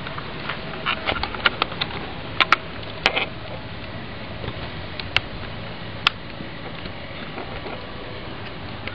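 Small metal fittings of a PCP air rifle and its filling gear being handled: a cluster of sharp clicks and taps in the first three seconds, then two single clicks about five and six seconds in.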